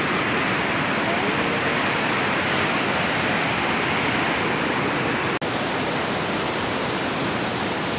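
Waterfall whitewater of the Iguazú Falls rushing over rocks in a loud, steady, even roar of water. The sound breaks off for an instant about five and a half seconds in, then carries on unchanged.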